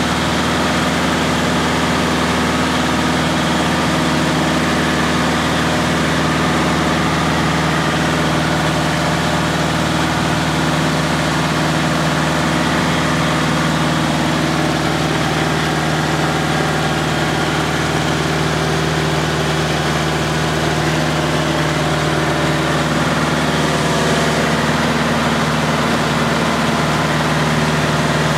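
Light airplane's engine and propeller droning steadily in level flight, heard from inside the cabin, with an even pitch and no change in power.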